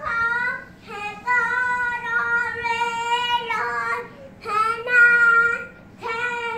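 A young child singing loudly in long, held notes, in several phrases broken by short breaths.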